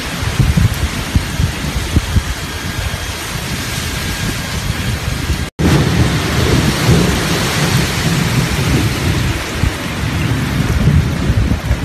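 Heavy wind-driven rain, a steady loud hiss, with gusts of wind buffeting the phone's microphone in an uneven low rumble. The sound cuts out completely for a split second about halfway through.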